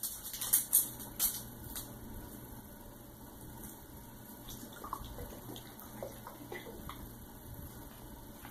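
Sharp clicks and knocks of handling in the first second or so. After that comes quieter fumbling with a few faint short squeaks as a salad-dressing bottle's cap is twisted and worked loose.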